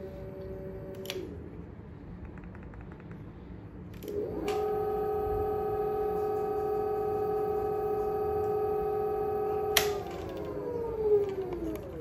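Electric scooter hub motor spinning under throttle: a short steady whine ending about a second in, then from about four seconds a steady whine at full speed that cuts off with a click near ten seconds and falls in pitch as the motor coasts down.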